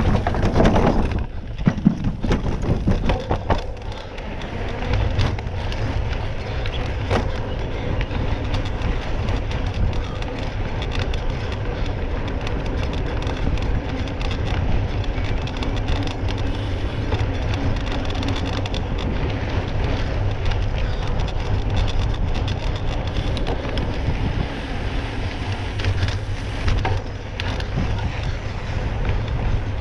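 Wind buffeting the microphone over a steady rolling rumble, with scattered clicks; a louder, busier stretch in the first two seconds.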